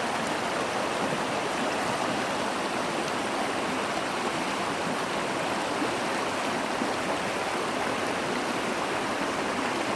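Creek water rushing steadily, a continuous even hiss of flowing water.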